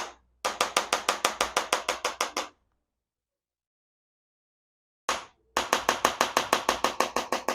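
Handheld chiropractic activator gun (adjusting instrument) firing on the neck vertebrae: a single sharp click, then a rapid run of evenly spaced clicks, about seven a second for two seconds. After a pause of about two and a half seconds comes another single click and a second rapid run.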